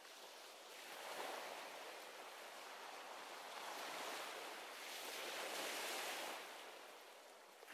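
Faint ocean surf: waves washing in and drawing back in slow swells.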